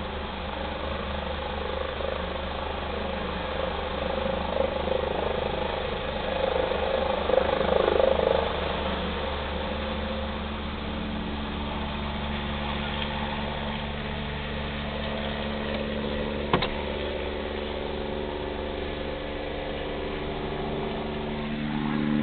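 Medical helicopter flying low over the street as it comes in to land, its noise swelling about a third of the way in, over the steady hum of an idling car. A single sharp click about two-thirds through.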